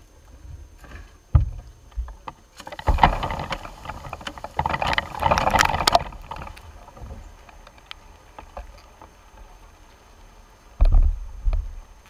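A mass of honeybees shaken out onto the wooden top bars of a hive: a rustling, clattering burst of about three seconds in the middle, with dull thumps on the wood about a second in and again near the end.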